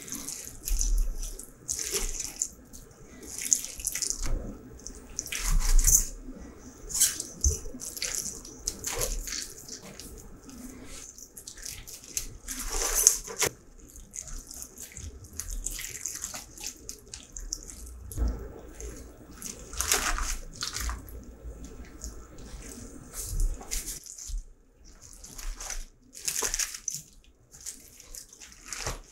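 Water poured from a stainless steel bowl over napa cabbage leaves in a steel mixing bowl, splashing and trickling in irregular spurts as the pour moves between the leaves.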